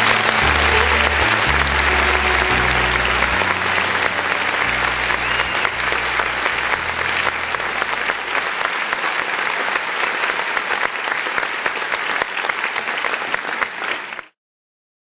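Audience applauding at the end of a live rock song, with the band's last low notes fading out under it over the first several seconds. The applause cuts off abruptly near the end.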